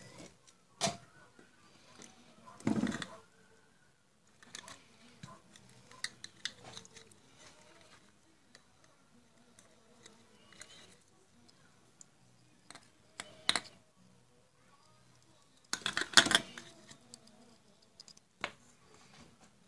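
The plastic housing and circuit board of a compact fluorescent bulb being handled and fitted together, giving scattered clicks, taps and knocks. The loudest is a short clatter of knocks about sixteen seconds in.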